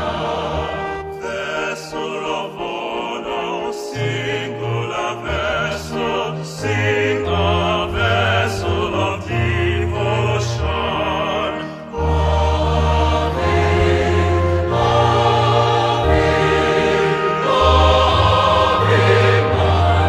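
A choir singing with instrumental accompaniment and a steady bass line, growing louder and fuller about twelve seconds in.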